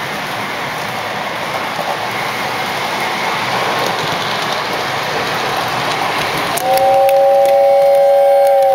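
Lionel O-gauge model trains running on three-rail track with a steady rumble. About seven seconds in, a train sounds a loud, steady chord whistle of two or three notes for about two seconds, stopping near the end.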